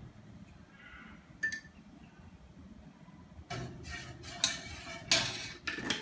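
A spoon clinking in a small metal saucepan as it stirs, with a single click early on, then a run of louder clinks and knocks over the last two and a half seconds as the spoon, the glass jar and its lid are handled.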